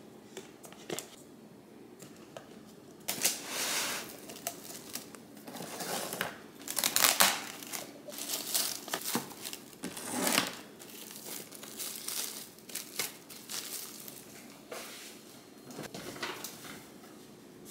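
Clear plastic food film crinkling and rustling as it is pulled and pressed around a plastic container, in irregular bursts starting about three seconds in.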